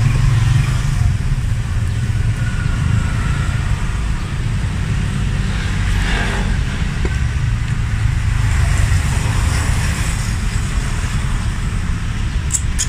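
Steady low rumble of motor-vehicle noise, with a run of sharp high ticks starting just before the end.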